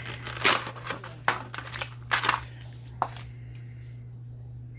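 Beyblade toy packaging being handled and torn open: several sharp crinkling rustles in the first three seconds, then it goes quiet apart from a steady low hum.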